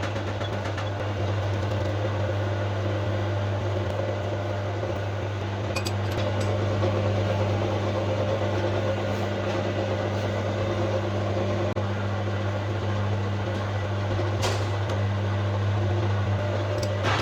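A steady machine hum with a few light metallic clicks over it, one sharper click about fourteen seconds in.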